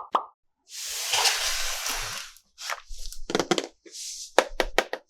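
Toy packaging being handled: a long rustling crinkle, then bursts of sharp crackles and clicks, and a second short rustle with more clicks near the end.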